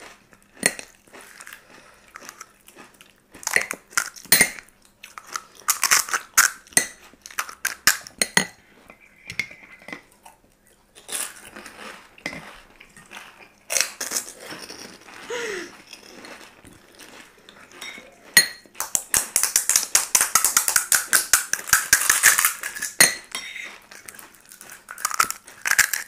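Metal spoons clinking and scraping against bowls and plates as fuchka shells are filled: scattered sharp clinks, with a fast run of them about three-quarters of the way through.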